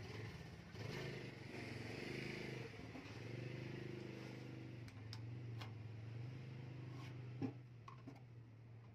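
Low, steady motor hum running in the background, with a few light taps and a sharper knock about seven and a half seconds in.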